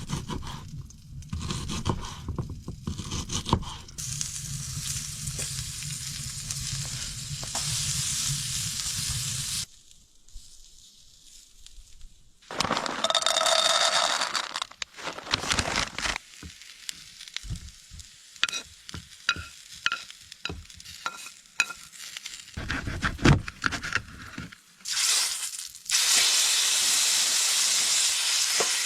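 Food sizzling as it fries in a pan, in several short stretches. The sizzle is broken by a quieter gap and by a run of sharp clicks and taps from about the middle, before a steady sizzle returns near the end.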